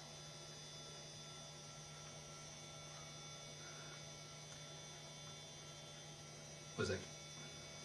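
Steady electrical mains hum: a low constant tone with fainter high-pitched whines over it. Near the end comes a brief voice sound, a short murmur from the man.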